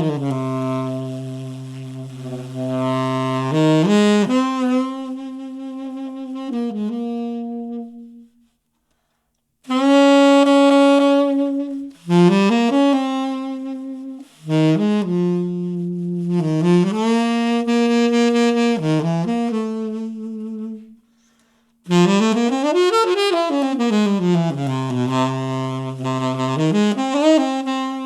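Solo saxophone music played back through a compact nearfield studio monitor and picked up by a microphone. It is a single melodic line of held notes in phrases, with two short breaks and a run of sweeping up-and-down slides in the last third.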